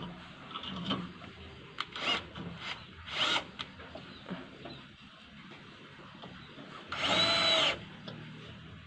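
Cordless drill run into wood in three short bursts, the motor spinning up each time. The longest and loudest burst comes about seven seconds in.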